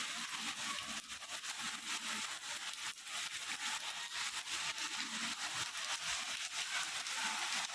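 Rain falling: a steady hiss with many small, irregular drop ticks.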